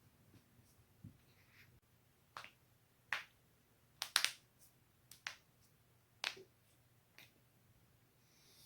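A person's joints cracking: a series of sharp pops, about seven spread over several seconds, the loudest a quick double pop near the middle.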